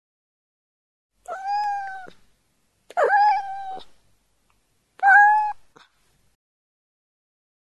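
Kitten meowing three times, each meow short and about two seconds apart: the kitten sound effect of a baby-animal sound-button book.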